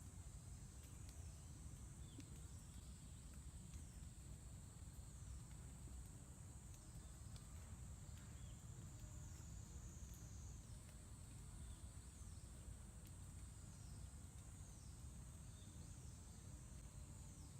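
Faint insect chorus: a steady high-pitched drone with short falling chirps repeating about once a second, over a low rumble.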